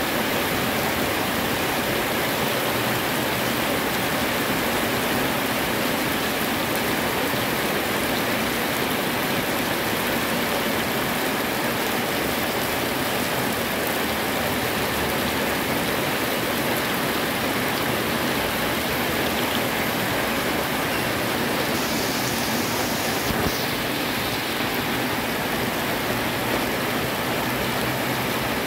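Heavy tropical downpour falling steadily on a paved road, a dense, even hiss of rain splashing on the wet surface.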